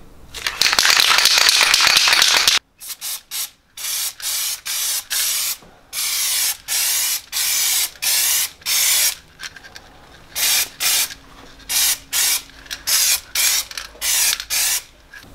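Aerosol can of gloss black spray paint rattled hard for about two seconds, the loudest part, then sprayed in many short hissing bursts, each under a second, with brief gaps between them.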